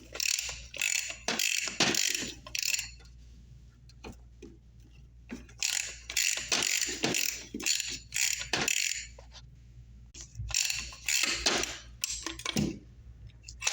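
RIDGID 118 CQ close-quarters ratcheting tubing cutter working around a copper water line: rapid ratchet clicking and the cutting wheel rasping on the pipe. It comes in three spells with short pauses between them, and the pipe is cut cleanly through.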